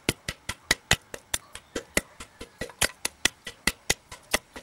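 Wooden pestle pounding sun-dried cassava pieces in a wooden mortar to make flour: a quick, even run of sharp knocks, about five a second.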